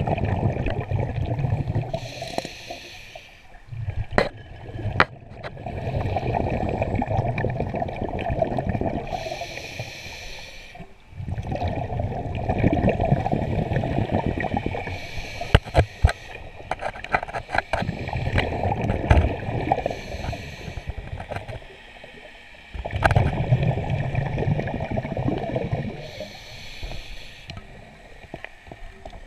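Scuba diver breathing through a regulator underwater: long bubbling exhalations alternate with short hissing inhalations, three breaths in all. A few sharp clicks fall between them.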